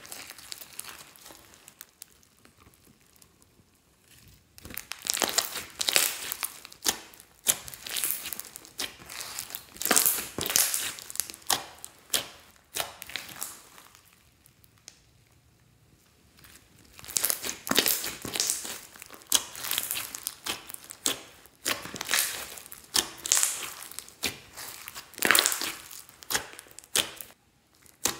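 Hands kneading, squeezing and stretching clear slime packed with small foam beads, giving a crackling, crunching sound in runs with two quieter pauses.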